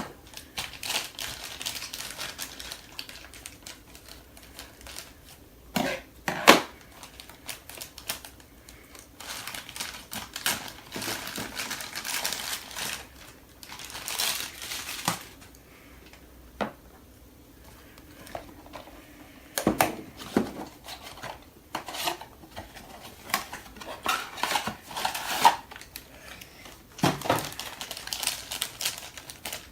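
Funko Mystery Minis blind-box packaging being handled and opened by hand: cardboard and wrapping rustling and crinkling, with scattered clicks and knocks, the sharpest about 6 seconds, 20 seconds and 27 seconds in.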